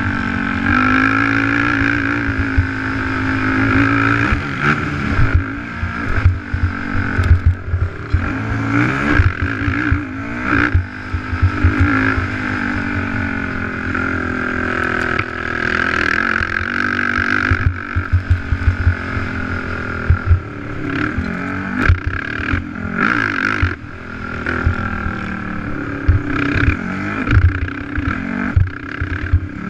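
Race ATV's engine revving up and down as it accelerates and backs off between corners and jumps, with frequent low thumps and rattles from the quad hitting bumps on the dirt track.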